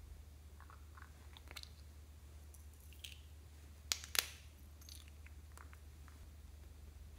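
A small clear plastic glitter-filled charm being handled and pried open by hand: light plastic clicks and crackles, with two sharp snaps close together about four seconds in. A low steady hum sits underneath.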